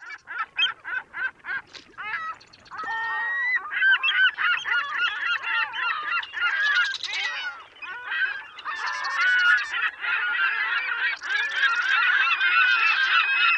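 A flock of birds calling. Separate short calls come a few times a second at first, then from about three and a half seconds in many calls overlap into a continuous din.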